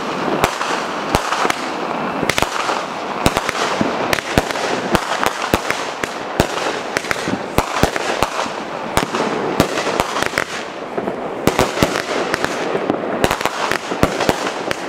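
Consumer aerial fireworks going off in rapid, irregular succession: many sharp bangs and pops a second over a steady hiss, with no let-up.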